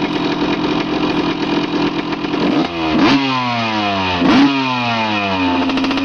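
A loud engine runs steadily, then is revved sharply three times, its pitch sinking slowly after each rev.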